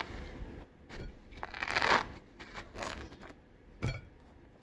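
Pomelo being peeled by hand: its thick spongy rind and pith tearing and crunching in a few short rustling bursts, the loudest about two seconds in. There is a soft knock near the end.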